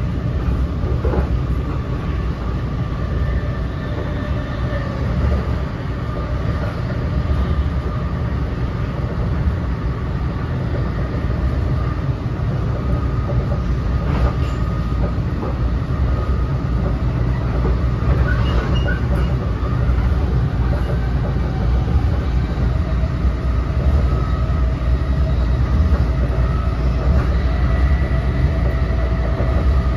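NJ Transit Multilevel passenger coach running at speed, heard from inside the car: a steady, loud low rumble of wheels on rail and car body, with a faint steady whine above it.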